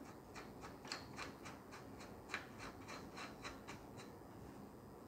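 Faint, quick, light ticks, about four a second, with some rubbing: hands working the thumbscrews that clamp a telescope's optical tube into its tripod holder.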